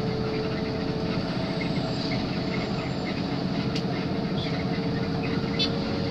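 Coach bus travelling at speed, heard from inside the passenger cabin: a steady drone of engine and road noise with a constant hum, and faint rapid ticking over it.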